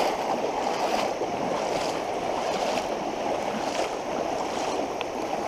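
Fast-flowing flooded creek water rushing steadily, with a few faint ticks.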